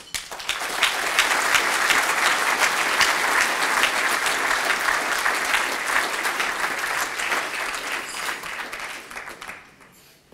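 Audience applauding, starting right away and dying away shortly before the end.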